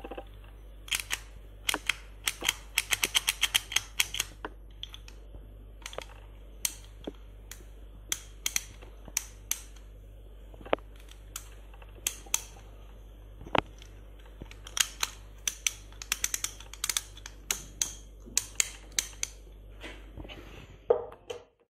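Chrome hand tally counter clicking as it is worked, in single clicks and quick runs of several a second. A louder thump just before the end.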